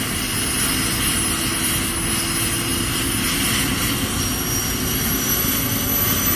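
Helicopter running, a steady turbine whine over the rotor noise.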